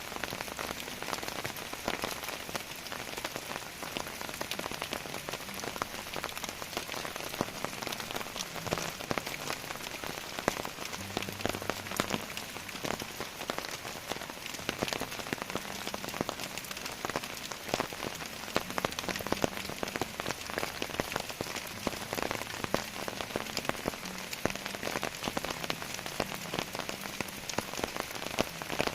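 Heavy rain falling steadily, with many close drops tapping sharply throughout.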